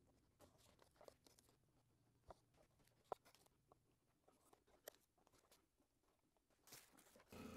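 Near silence, with faint scattered clicks and rustles of masking tape being handled and pressed onto a model rocket's fins. At the very end a steady hum and hiss cuts in.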